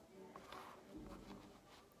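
Near silence, with faint scattered clicks and a soft rustle of hands working a batch of homemade slime.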